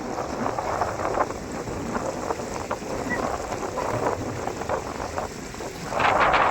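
Steady rush of falling water at a waterfall, mixed with wind buffeting the microphone, growing louder near the end.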